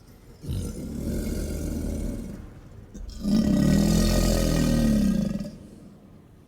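American alligator bellowing twice: a first call starting about half a second in, then a louder, longer one whose pitch rises and falls.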